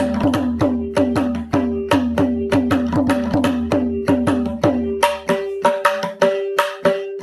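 Mridangam played in a steady run of quick strokes, about four or five a second, the right head ringing at a fixed pitch and some lower strokes sliding down in pitch. A low steady hum sits underneath and stops about five and a half seconds in.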